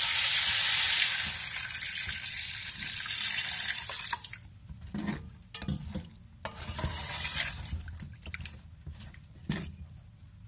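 Water poured into an aluminium pot of spiced potatoes that have been cooking in oil. It is loudest in the first second, then runs more steadily and comes on and off in spurts, with a few sharp knocks of the ladle against the pot.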